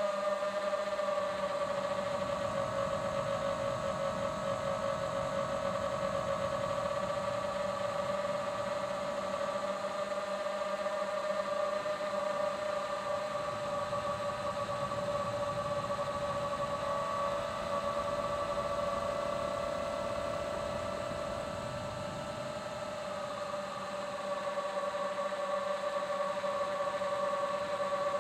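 FPV quadcopter's motors and propellers whining steadily at cruising throttle. The pitch lifts a little about halfway through, then drops back about three quarters of the way through, where the sound briefly gets quieter.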